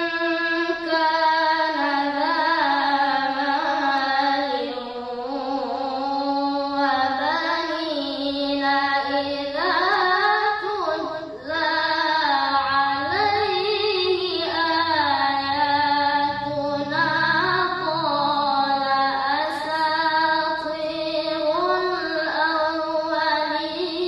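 A boy's voice reciting the Quran in the melodic tilawah style: long held phrases with ornamented pitch glides rising and falling, broken by a short pause about eleven seconds in.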